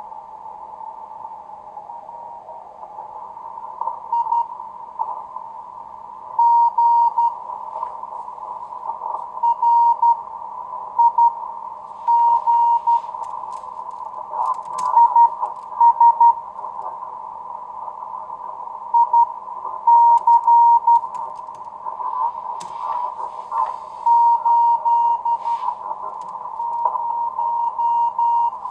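Morse code (CW) coming from an amateur radio receiver: a keyed tone of about 900 Hz in runs of dots and dashes over steady hiss that is narrowed by an audio filter, with a few short static crackles.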